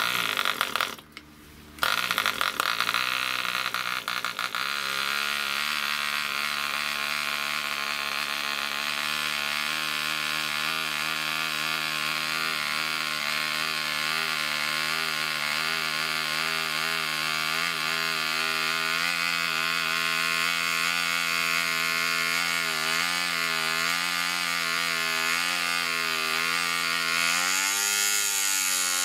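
Small two-stroke model aircraft engine on a bench test stand, hand-flicked by the propeller, catching about two seconds in and then running steadily at high speed with a slight waver in pitch. Near the end the pitch rises and falls back as the needle valve is adjusted.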